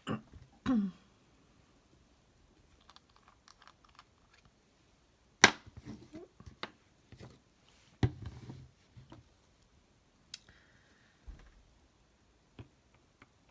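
Small clicks, taps and knocks of a piston-filler fountain pen and a glass ink bottle being handled on a tabletop while the pen is readied for inking. The loudest is a sharp knock about five and a half seconds in, with another near eight seconds.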